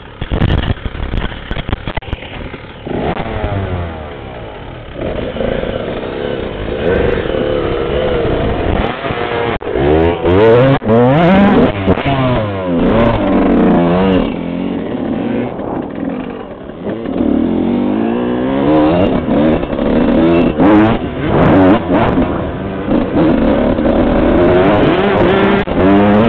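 Suzuki RM125 two-stroke single-cylinder dirt bike engine revving up and down again and again as it is ridden around a motocross track, heard close up from the rider's helmet. It gets louder in the second half, with scattered knocks and rattles.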